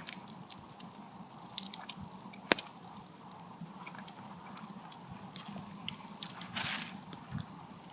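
A person chewing a mouthful of grilled steak, with scattered small clicks and one sharper click about two and a half seconds in.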